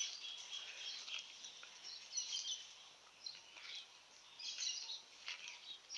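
Faint outdoor ambience with birds chirping high in short bouts, about every second or so.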